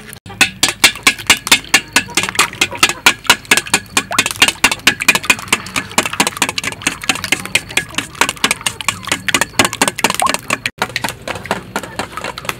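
Eggs being beaten by hand in a stainless steel bowl, the utensil clicking rapidly against the metal at about five strokes a second, with a brief break about eleven seconds in.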